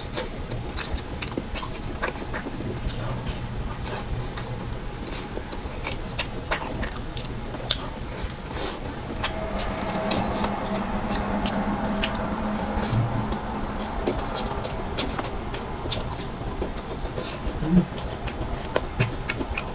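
A person eating: short wet mouth clicks and smacks while chewing, over a steady low hum. A muffled, sustained humming tone comes in for a few seconds about halfway through.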